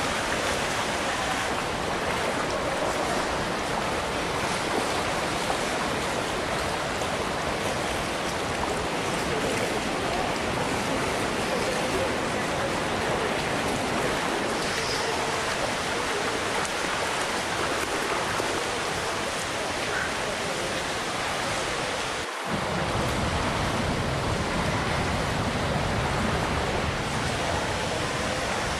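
Steady rushing of water from small waterfalls and cascades, briefly dipping about three-quarters of the way through.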